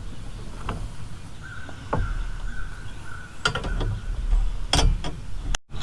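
Scattered metal clinks and knocks as parts of a wheel hoe are handled and fitted during assembly, about four distinct knocks with a faint steady high tone in between.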